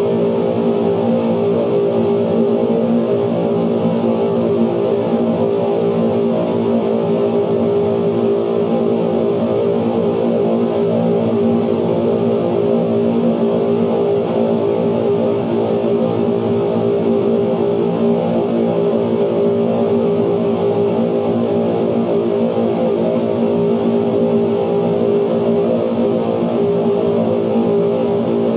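Dense, steady electronic drone from the magnetic sound tracks of running 16mm film projectors, altered by light sensors reading the projected image: many held tones stacked together with a rough, grainy texture, at a constant loud level.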